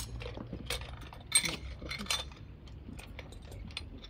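Metal rope-rescue hardware clinking and jangling as it is handled: a string of light clicks, with one louder ringing clink a little over a second in.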